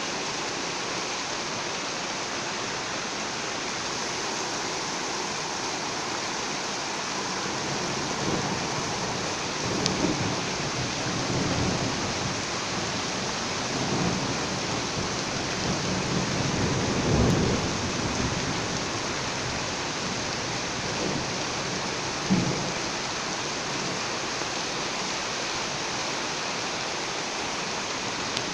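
Steady rain with thunder rumbling several times from about a third of the way in, loudest past the middle, and a short sharp clap a little later.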